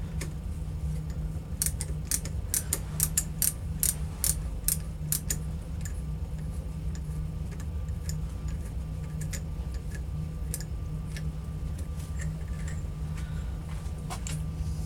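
Metal lathe running with a steady hum while small sharp metallic clicks and ticks come over it, thick for a few seconds early on and scattered after, during thread cutting on a steel spindle.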